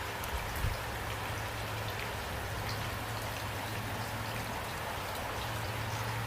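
Steady rain, with individual drops ticking in a constant hiss over a low steady rumble; one soft knock about half a second in.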